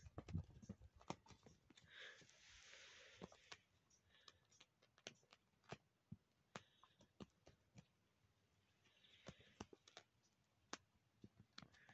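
Near silence with faint, scattered clicks and soft scratching: a kitten's paws and claws batting at a lizard on a concrete floor.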